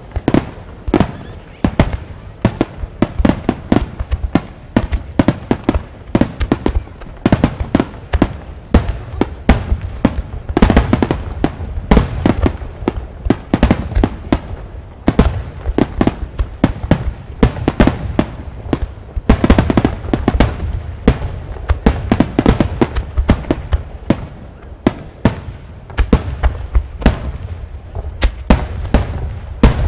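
Large fireworks starmine barrage (a Super Vesuvius program) with shells bursting in rapid succession, several reports a second over a deep rumble, with some louder booms standing out.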